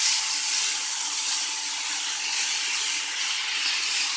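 Chicken, mushrooms and broccoli sizzling in a hot nonstick pan as they are stirred, a steady hiss with a faint steady hum underneath.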